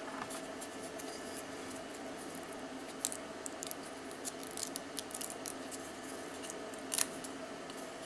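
Scattered light scratches and small clicks, busiest from about three to six seconds in, of a steel switch cover plate being handled and wiped with acetone to strip its red plasti dip coating. A steady faint hum runs underneath.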